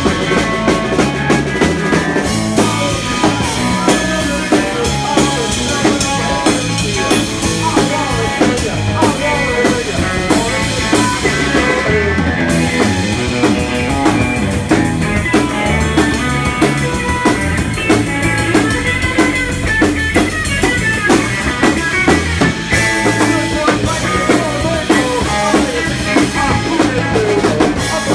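Live rock band playing: drum kit, electric bass and electric guitar, loud and continuous with a regular drum beat.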